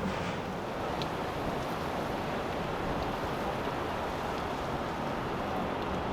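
Steady wash of wind and water noise with boat traffic on the river.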